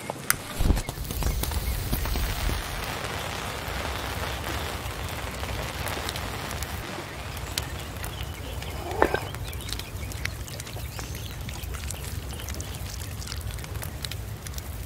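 A small fire of burning corn tortilla chips crackling and hissing among stones, with scattered sharp pops and a couple of sharp clicks in the first second.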